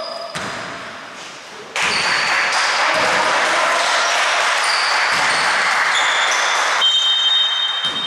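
A basketball bouncing on a wooden gym floor a few times, irregularly spaced, with brief high squeaks of shoes and a loud wash of voices and noise echoing in the hall from about two seconds in until near the end.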